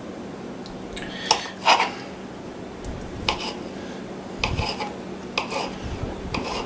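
Kitchen knife cutting a brick of pepper jack cheese, with a few irregular short clicks and knocks of the blade and utensils.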